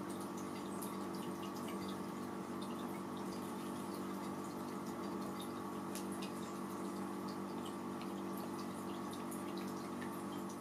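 Room tone: a steady electrical hum with faint, scattered small ticks.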